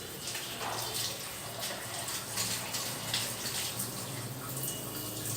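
Water running and splashing while a child's hair is being rinsed, with a low steady hum underneath.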